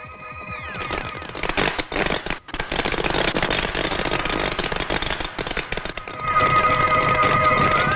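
Cartoon electronic sound effect for radio interference beaming out from a transmitter tower: gliding electronic tones give way about a second in to a dense crackling buzz. Steady electronic whine tones join the crackle about six seconds in.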